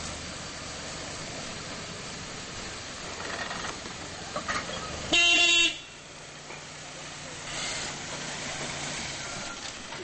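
Toyota pickup truck driving with its engine running, and one short horn honk of under a second about halfway through, the loudest sound. A low steady hum follows the honk as the truck sits running.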